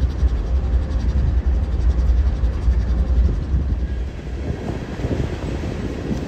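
Diesel freight locomotive and its coal gondolas rolling past with a heavy, steady low rumble. The rumble eases about two-thirds of the way through, leaving a lighter rolling noise.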